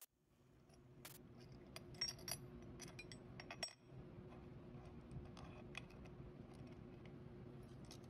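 Faint steady hum with scattered light metallic clinks and ticks, most of them in the first half.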